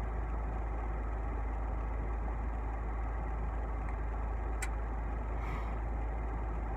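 Car engine idling with a steady low hum, heard from inside the car, with one sharp click about halfway through.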